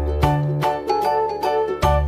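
Background music: a light tune of short, evenly spaced notes over a changing bass line.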